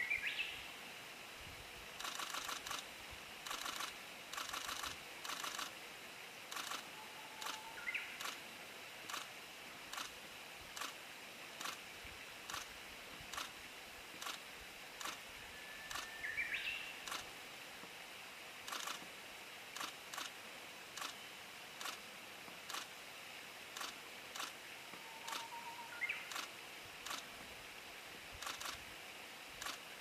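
Camera shutters firing in rapid bursts, over and over, with a few short high bird calls in between.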